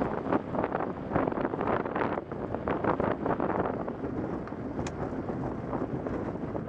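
Wind buffeting the microphone and the rolling noise of a velomobile on a rough, patched lane, with frequent short knocks and rattles from the bumps.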